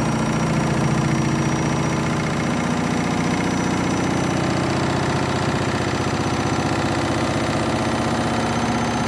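Candy washing machine in its final spin, its motor and drum running loud and steady with a fast rhythmic pulsing. The drum is overloaded and the wash overdosed with detergent.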